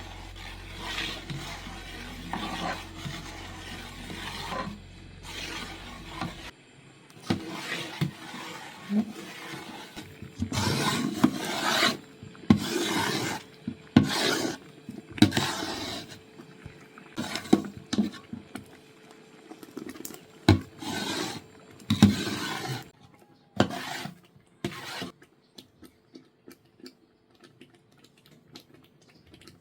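A utensil scraping and rubbing against cookware in repeated strokes, about one a second, loudest in the middle and dying away a few seconds before the end. A low hum runs under the first six seconds or so.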